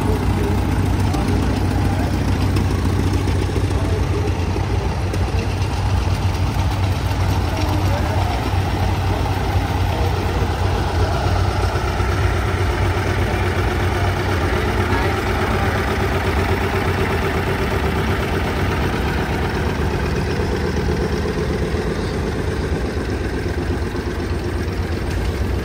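Vintage farm tractor engines running steadily, a constant low drone with no change in speed.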